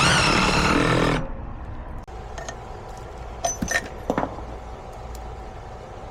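A power tool runs in one burst of about a second, then a few light clicks and taps.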